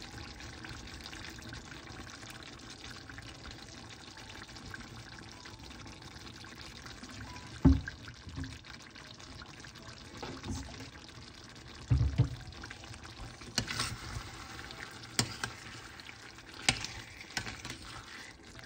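Apple cider vinegar pouring from a bottle into a pot of simmering liver and sauce, a steady liquid hiss. About eight and twelve seconds in come two dull thumps, then several sharp metal clinks as a spoon goes into the pot near the end.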